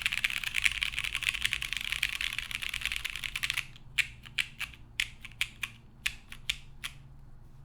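Typing on a Keycult No. 2 mechanical keyboard with lubed vintage Cherry MX Brown switches on a half polycarbonate plate and GMK keycaps. A fast, continuous run of keystrokes slows a little past halfway into a dozen or so separate key presses, which stop about seven seconds in.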